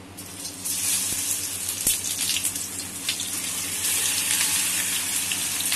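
Boiled, turmeric-coated taro (arbi) pieces going into smoking-hot mustard oil in a non-stick kadhai and sizzling. The sizzle starts a moment in and swells loud within the first second as the bowlful is tipped in, with a single light knock about two seconds in.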